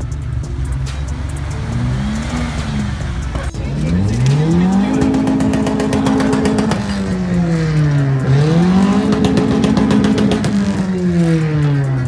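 Off-road vehicle engine running as it reverses through mud. After a cut, the Suzuki Swift engine in a Suzuki Samurai Long on 41-inch tractor tyres revs hard: it climbs quickly, holds high, dips once and climbs again, with a rapid ticking over it.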